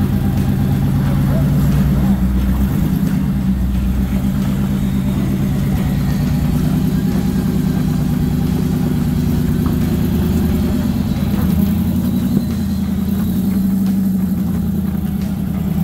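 Off-road 4x4's engine running at low revs under a light, shifting throttle while crawling a slippery rock obstacle. The pitch rises and eases a little but never revs hard.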